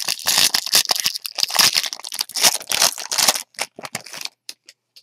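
Foil wrapper of a Bowman Draft trading card pack crinkling as it is torn open and crumpled by hand for about three and a half seconds, followed by a few light ticks.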